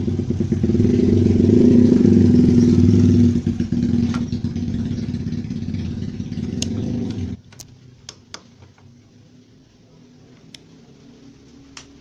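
A home-made motorcycle horn's electric driver buzzing loudly as the newly wired relay switches it on, with no trumpet fitted yet. It cuts off suddenly about seven seconds in, and a few light clicks follow.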